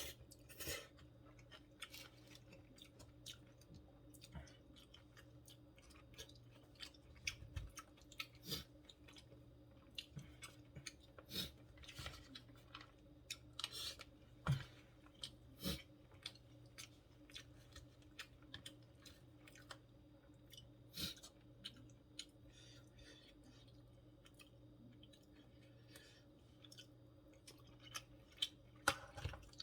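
Close-up chewing and wet mouth sounds of a person eating, in irregular soft smacks and clicks, over a faint steady hum.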